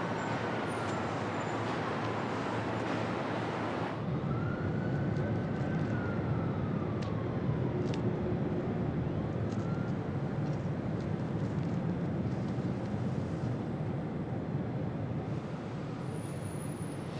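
Steady city traffic noise, a dense rumble of passing vehicles that becomes lower and heavier about four seconds in. A faint high whine rises and falls twice in the middle.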